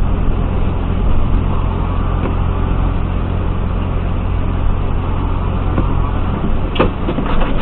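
Steady road noise heard from inside a vehicle driving on a wet highway: a low rumble of engine and tyres with an even hiss of tyres on wet pavement. There is a brief knock near the end.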